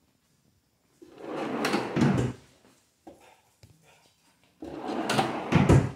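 Two plywood drawers sliding on metal ball-bearing telescopic runners, each run ending in a low thump as the drawer stops; at least the first is pushed shut.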